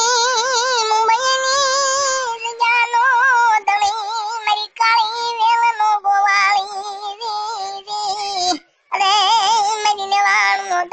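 A high-pitched voice singing with heavy vibrato, breaking off briefly about eight and a half seconds in.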